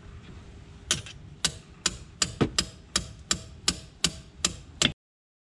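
A hammer striking a wrench about a dozen times, roughly three blows a second, to break loose a tight, painted-over plug on a TYM 574 tractor's front axle. It cuts off suddenly near the end.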